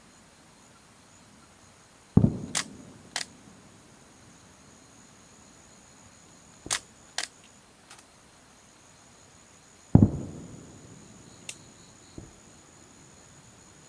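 Fireworks shells bursting: two deep booms about eight seconds apart, each with a long echoing tail, and several sharp cracks scattered between them.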